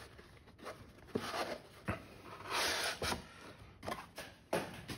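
Cardboard box being opened by hand, its lid slid off the base: rubbing and scraping of cardboard on cardboard with a few light taps, the longest and loudest rub about two and a half seconds in.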